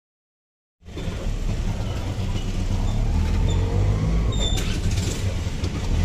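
Silence for most of the first second, then steady motor and road rumble heard from inside a moving three-wheeled rickshaw, with a brief sharp click about four and a half seconds in.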